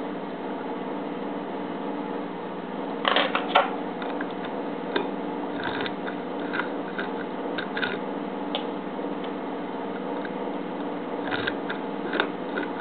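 A key pushed into a cutaway brass pin-tumbler lock cylinder, giving a quick cluster of sharp metallic clicks about three seconds in as the pins ride over the cuts. Lighter scattered clicks of the key and pins follow, over a steady low hum.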